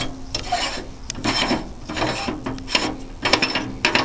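Repeated rasping scrapes of metal rubbing on metal, about seven irregular strokes, as the sheet-metal casing of a Lister G1 stationary engine is worked at by hand.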